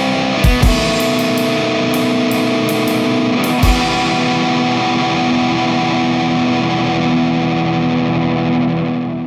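Rock music with distorted electric guitar, fading out near the end.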